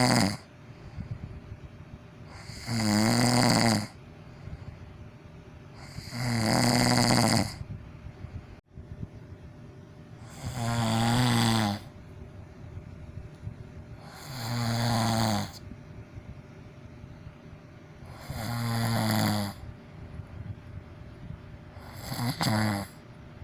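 A person snoring loudly, one long buzzing snore about every four seconds, six in all, with quieter gaps between them. The last snore, near the end, is shorter and broken.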